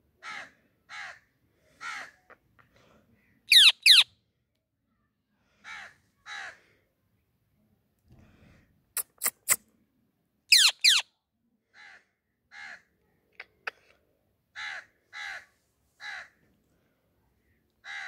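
Rose-ringed parakeet calling: a run of short harsh squawks, with a loud falling screech about four seconds in and again about eleven seconds in, and a quick burst of sharp chirps near nine seconds.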